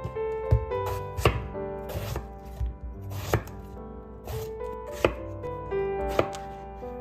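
Chef's knife cutting eggplant into chunks on a wooden cutting board: a sharp knock of the blade hitting the board about once a second, at an uneven pace, over background music.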